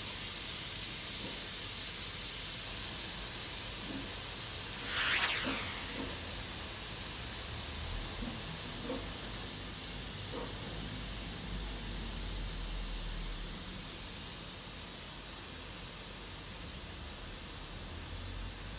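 Steam cleaner's hand gun venting the last of the steam from its 4-litre boiler after the water has run out and the low-water warning has come on. A steady hiss that slowly weakens as the pressure falls, with a brief louder spurt about five seconds in.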